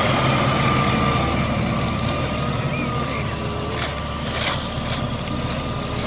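Rear-loader garbage truck running at the curb: a steady diesel rumble with a steady high whine over it, and a brief sharp sound about four and a half seconds in.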